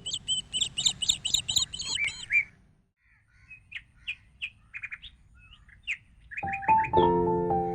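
Birds chirping: a quick run of high repeated notes, then scattered short calls. Piano music comes in near the end.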